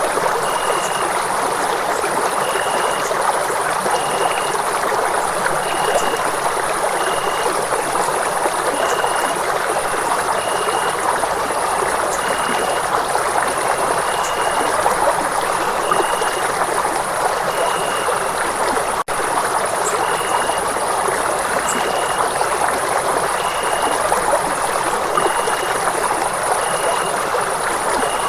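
Steady rush of running water, like a stream, an even noise without change. A faint short high chirp repeats roughly once a second over it, and the sound breaks off for an instant about two-thirds of the way through.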